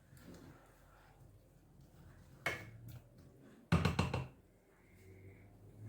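A spoon knocking against a bowl while fruit salad is stirred: a single knock, then a quick cluster of louder knocks about a second later.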